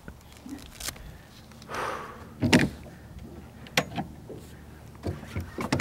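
Sharp knocks and clicks of fishing gear being handled in a boat as a fighting belt is fitted and the rod settled into it, with a short hiss about two seconds in.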